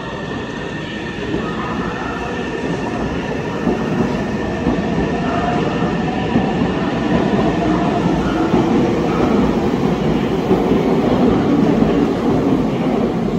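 Meitetsu 2200 series electric limited express pulling out of the platform and accelerating past. The rumble and wheel clatter grow gradually louder as it gathers speed.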